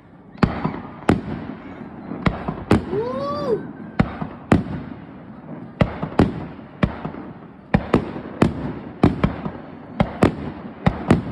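Fireworks display: an irregular run of sharp bangs from shells bursting, nearly two a second, with a rumbling echo between them.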